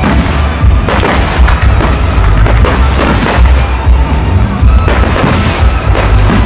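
Fireworks going off in rapid succession, many sharp bangs and deeper booms, over loud music with a heavy bass.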